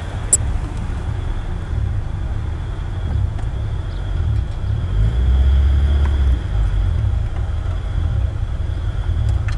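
Car cabin noise while driving: a steady low engine and road rumble that swells louder for about a second around the middle, with a faint steady high whine.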